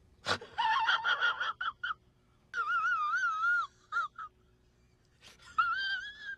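A man whimpering in a high, wavering falsetto, like a comic cry. There are three strained wails with short gasps between them, the middle one the longest.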